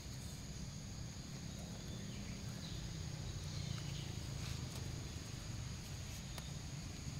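Outdoor forest ambience: a steady, high-pitched insect drone over a low rumble, with a few faint clicks.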